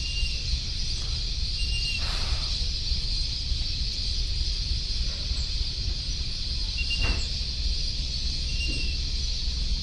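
Houseboat's inboard engine rumbling low in reverse gear, under a steady high insect drone. About four short, high whistle blasts come from the crew at the back, signalling the driver while the boat reverses.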